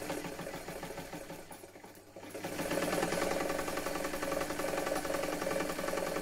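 Vintage electric sewing machine stitching a seam with a fast, even stitch rhythm over a motor hum. It runs slower and softer at first, eases off about two seconds in, then picks up and runs faster and louder.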